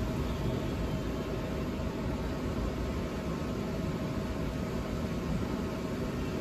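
Steady room noise: an even hiss with a low hum, no distinct events.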